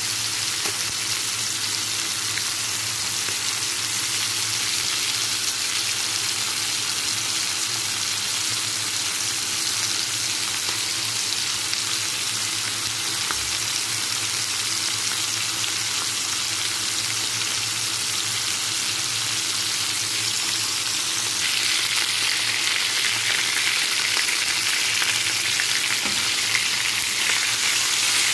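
Seasoned chicken pieces browning in a hot pan, a steady sizzle that grows louder about three-quarters of the way through.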